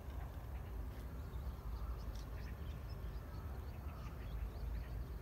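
Scattered short bird chirps over a steady low rumble on the microphone.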